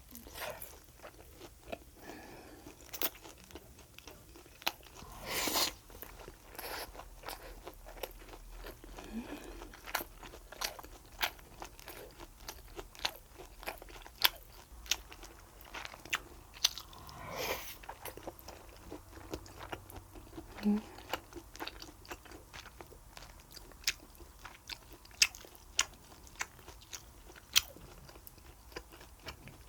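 Close-miked eating sounds: steady chewing and crunching, with many small sharp clicks and smacks from bites of food. Two short louder swells come about five seconds in and again past the middle.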